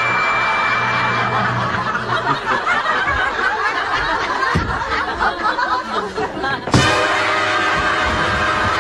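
Studio audience laughing throughout, with background music. A held tone sounds in the first second or so, and there is an abrupt change about seven seconds in.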